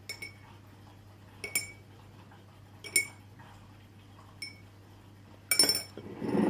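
A spoon clinking against a bowl during slime-making: single short ringing clinks about every one and a half seconds, with a louder cluster near the end followed by a brief rustle.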